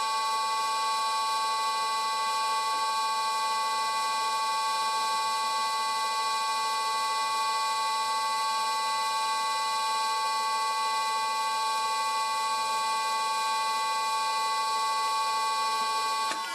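Old Karger lathe running at steady speed during a facing cut: a steady whine made of several high pitches held level. It starts to wind down at the very end.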